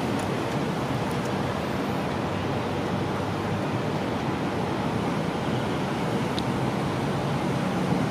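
Steady rumble of an SRT THN-class diesel railcar set running along the track as it draws away.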